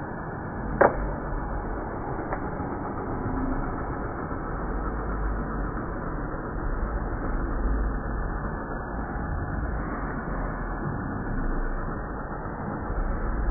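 Hair dryer running steadily with a continuous blowing noise, with one sharp click about a second in.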